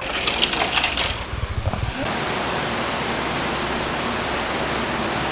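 Brief rustling and handling noises, then from about two seconds in a steady, even rushing hiss with no pitch.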